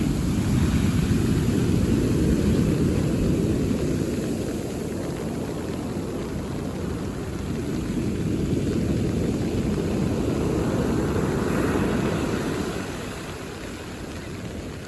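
Mediterranean sea waves breaking on a beach, the deep surf noise swelling and easing in slow surges, with a lull near the end.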